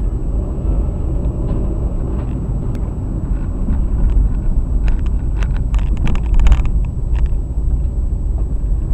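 A car driving, with a steady low rumble of engine and road noise as picked up by a dashcam. From about halfway in there is a cluster of sharp knocks and clatter, densest and loudest for a second or so near two-thirds of the way through.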